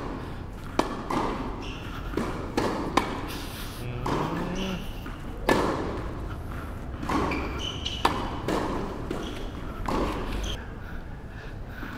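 Tennis balls hit back and forth with rackets in a volley rally: a sharp pop every one to two seconds, each echoing in a large indoor court hall.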